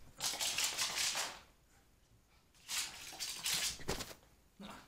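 A small terrier scrabbling and scuffling on thick carpet close by while chasing its toy: two noisy bursts of rapid scratchy strokes, each lasting about a second and a half, the second starting about two and a half seconds in.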